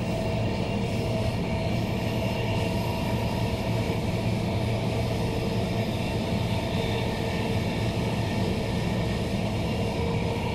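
Interior running noise of a Queensland Rail NGR electric multiple unit, a Bombardier-built electric train, travelling at steady speed: a constant rumble of wheels on rail with a steady hum and whine from the train's running gear.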